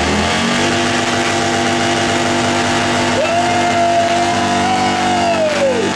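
Motorcycle engine held at high revs during a burnout, its rear tyre spinning in thick smoke; the pitch steps up at the start and then holds steady. A higher whine comes in about three seconds in and drops away just before the end.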